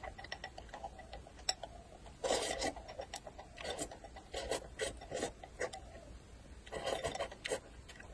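Close-miked eating of noodles shoveled in with chopsticks from a bowl held to the lips, slurped in irregular bursts, with a few light clicks of the chopsticks against the porcelain bowl.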